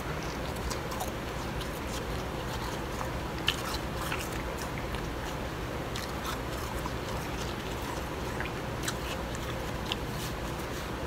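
Blended bag ice being bitten and chewed: irregular crisp crunches and crackles, the sharpest about three and a half seconds in.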